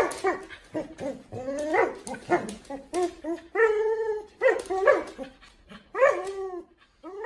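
A puppy barking and yipping repeatedly in short, pitch-bending calls, with one longer held call about halfway through.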